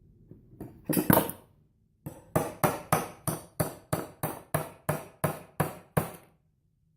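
Hammer tapping on a 3/8 socket held over the end of the starter shaft of a Briggs & Stratton Intek V-twin: metal-on-metal strikes. A few come about half a second in, then a steady run of about a dozen, roughly three a second.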